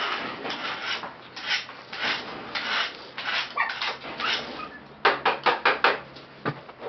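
Rubbing and scratching on cloth as a hand plays with a puppy lying on it, coming in strokes about every half second, then a quick run of sharper scratches about five seconds in.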